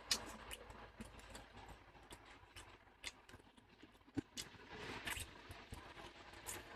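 Faint, scattered clicks and knocks at irregular intervals, with a short hiss about five seconds in.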